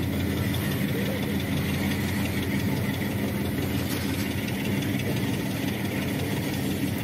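Steady low drone of freight-train diesel locomotives, a pair of GE U20Cs, pulling under load, mixed with the rumble of loaded hopper cars rolling slowly past.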